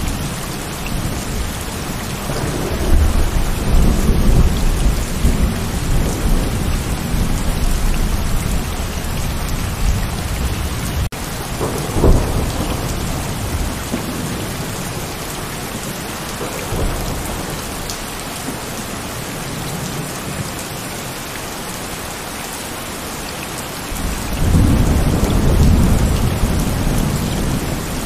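Heavy rain falling steadily, with rolls of thunder rumbling over it: a long rumble a couple of seconds in, a sharper clap about twelve seconds in, and another rumble building near the end.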